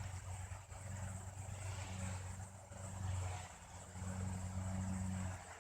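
A low engine-like hum that swells and fades several times, with a faint steady high buzz over it.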